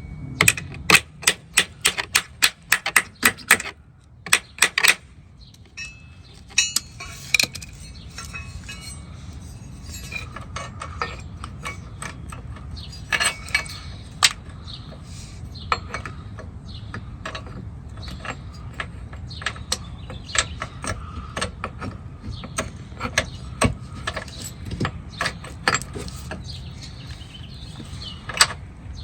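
Hand-tool work on the car's underside bracket mounting: a series of sharp clicks and knocks, coming in quick clusters for the first five seconds or so, then scattered single clicks over a low steady background.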